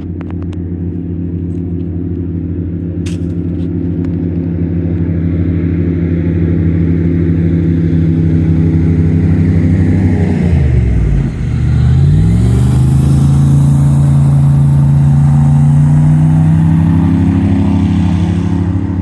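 Fire-rescue boat speeding past on the river, its engine running with a steady drone that grows louder; about eleven seconds in the pitch drops sharply and swings back up, and the boat is loudest just after.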